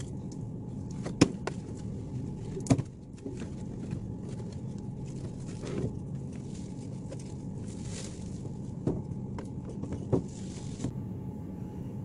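Steady low store background hum with several sharp clicks and knocks as things are handled on a shelf, the two loudest in the first three seconds.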